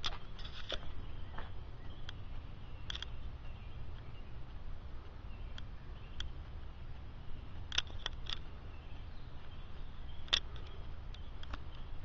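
Quiet outdoor ambience: a steady low rumble with scattered short clicks and chirps at irregular moments. The siren is not sounding.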